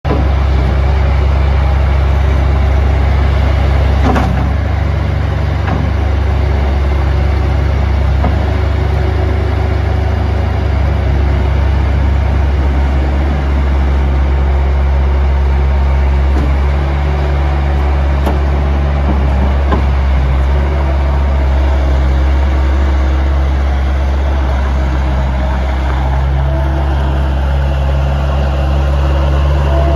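2005 Bobcat S130 skid steer's Kubota diesel engine running steadily with a low, even drone.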